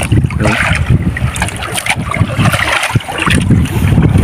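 Wind buffeting the microphone in gusts, with water sloshing against a wooden outrigger boat.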